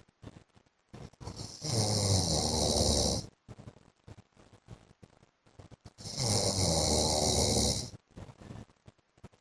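A man snoring: two long snores, each lasting under two seconds, about four and a half seconds apart.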